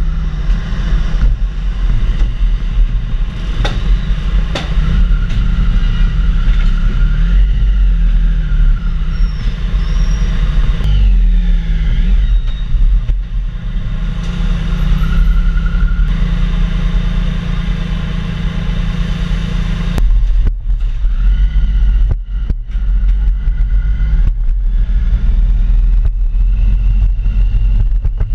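Motorcycle engines running at low speed, their pitch rising and falling with the throttle in the middle. The sound changes abruptly about twenty seconds in.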